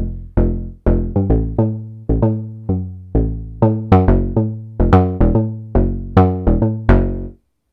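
Arturia MicroFreak synthesizer playing a factory preset: a plucky bass sound, a run of about twenty short notes, each starting sharply and dying away quickly, in an uneven rhythm, stopping shortly before the end.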